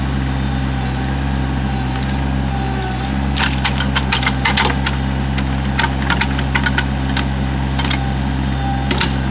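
Excavator's diesel engine running steadily, with a scattered run of sharp cracks and knocks starting about three seconds in as it works a tree into the burn pile.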